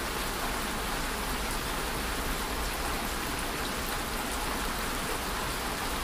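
A steady, even hiss of background noise with no distinct events.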